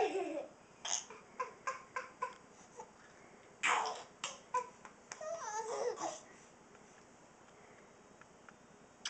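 A baby laughing in short bursts at an adult's fake coughing, with one harsh cough a little under four seconds in, followed by a longer laugh that glides up and down.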